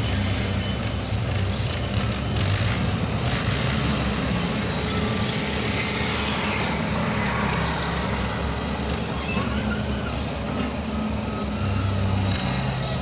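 Excavator's diesel engine running steadily under hydraulic load, its pitch shifting a little up and down as it works.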